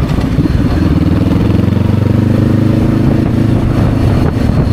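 Motorcycle engine running on the move, its pitch climbing gently about a second in and then holding steady.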